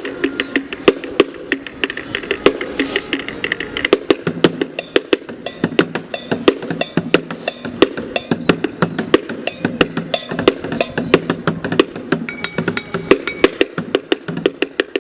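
Street drummer beating a fast, dense rhythm with drumsticks on bottles, many sharp strikes a second with a hollow pitched ring. About four seconds in, a lower steady pitched layer joins the beat.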